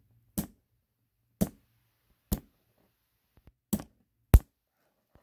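Needle-nose pliers knocking a cherry pit against a steel block to crack it open: five sharp knocks roughly a second apart, the last two closer together and the last the loudest.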